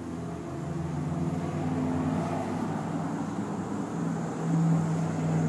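A motor vehicle's engine running, a steady low hum that shifts slightly in pitch and grows louder, loudest shortly before the end.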